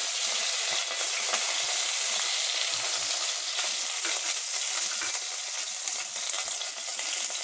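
Chopped curry leaves sizzling steadily in hot oil in a wok, a dense, even hiss.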